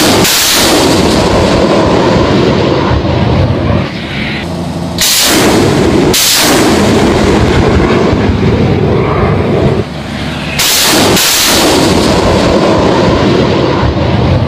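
BM-21 Grad multiple rocket launcher firing a salvo: a loud, continuous roar of rockets leaving the tubes. It is broken by short lulls about four and ten seconds in, each followed by sharp cracks.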